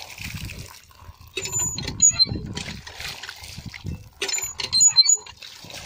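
Water from a hand pump splashing in uneven bursts into cupped hands and onto the ground, with slurping as the water is drunk.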